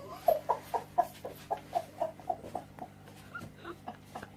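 An animal making a quick run of short, slightly falling calls, about four a second, growing fainter toward the end, over a steady low hum.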